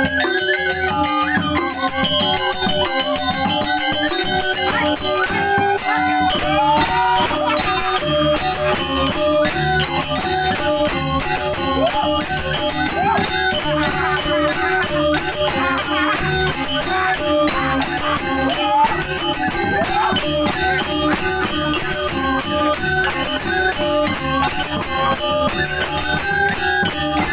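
Music from a Balinese gamelan: a fast, continuous clatter of cymbal-like percussion over stepped melodic notes, the ensemble growing fuller about six seconds in.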